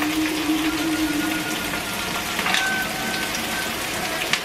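Frozen mixed vegetables sizzling in a hot oiled wok on a gas burner, a steady frying hiss, with two sharp clicks, one about halfway through and one near the end.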